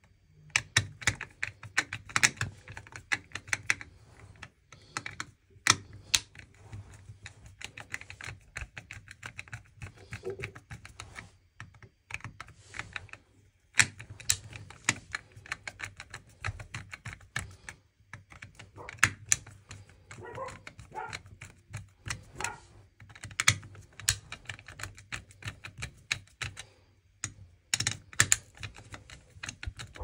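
Insulated screwdriver working the screw terminals of a heating receiver's wiring block: a long, irregular run of small clicks, ticks and scrapes of metal on plastic as the terminal screws are turned and the wires handled, with a few short pauses.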